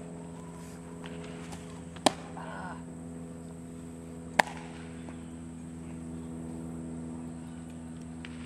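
Two sharp pops, about two seconds apart, of a thrown baseball smacking into a leather glove, over a steady machine hum.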